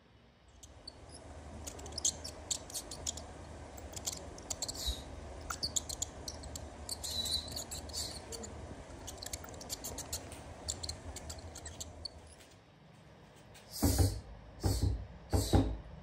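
Mice squeaking and scratching: a rapid, irregular run of thin high squeaks and clicks. Near the end come several loud thumps, like knocks on a wooden wardrobe door.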